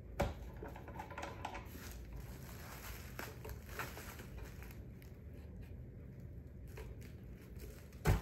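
Handling noise from unpacking a wooden wool picker: plastic wrapping crinkling and light clicks and taps of wooden parts. There is a sharp knock just after the start and a louder knock near the end.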